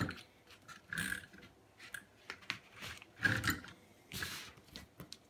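Several short bursts of rustling and handling noise, each under half a second, from a plastic sheet being handled and clamped.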